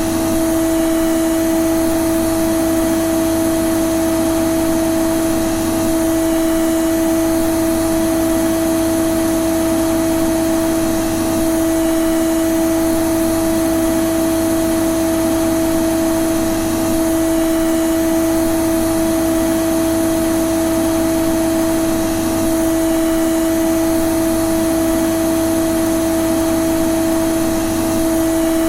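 Vacuum cleaner running steadily: a constant motor hum with two strong steady tones over an even rush of air.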